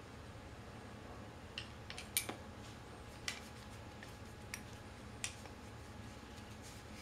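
Parts of a wheelchair caster being taken apart by hand: a handful of sharp clicks and clinks of small hard parts, the loudest a little after two seconds in.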